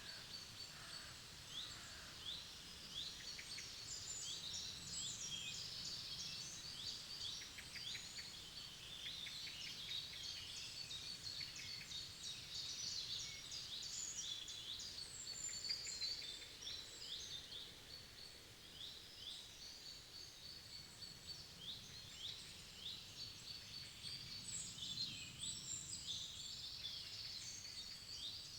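Forest birds singing together: many quick, high chirps and trills overlapping throughout, over a faint low background rumble.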